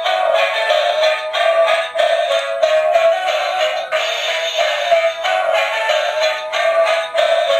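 Music with a synthetic-sounding singing voice, thin and with almost no bass.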